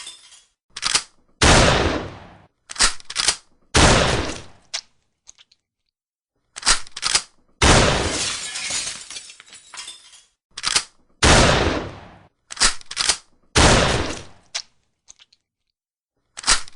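Shotgun firing five times in about twelve seconds, each blast followed by a long fading tail, with quick clusters of sharp metallic clicks between the shots as the action is worked to reload.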